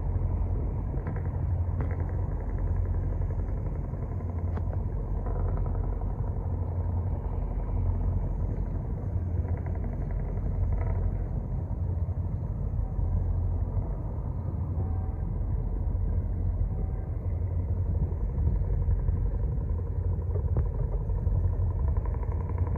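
Steady low rumble of a river cargo ship's engine running.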